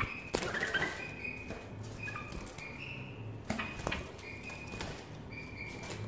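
Young white-eared bulbuls in a cage giving short, level chirping calls, mixed with sharp knocks and wing flutters as the birds hop and flap about the perches and bars.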